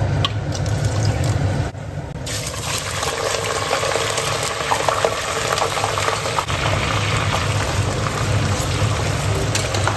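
Whole spices and then raw mutton pieces sizzling in hot mustard oil in an aluminium pressure cooker, turned with a flat steel spatula. The sizzle gets fuller about two seconds in.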